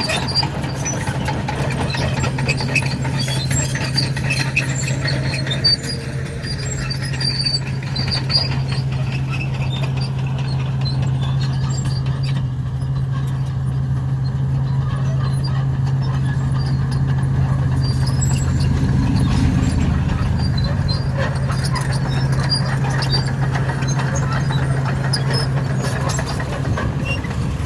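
Komatsu D61 crawler bulldozer's diesel engine running steadily under load, with scattered clanks and crackles as the machine breaks up the sealed bituminous road surface.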